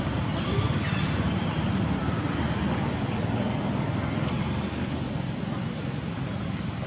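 Steady low outdoor background rumble with no distinct event in it.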